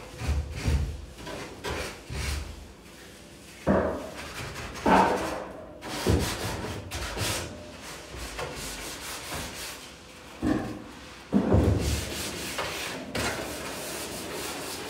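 Repeated rubbing strokes of hand work on closet shelving, like hand sanding. Five sharp knocks are spread through, two close together a little after a quarter of the way in and two more about three-quarters through.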